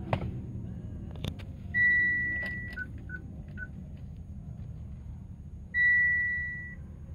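Mitsubishi Outlander PHEV dashboard warning chimes: two sharp clicks, then a steady chime of about a second that fades out, three short quieter beeps, and a second matching chime about four seconds after the first. They sound as the cluster shows its warnings, over a low steady hum in the cabin.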